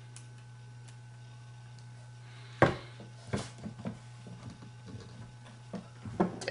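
Small hand tools clicking and knocking on a paintball marker while a tight set screw is being worked: one sharp click about two and a half seconds in, then a scatter of lighter knocks, over a steady low hum.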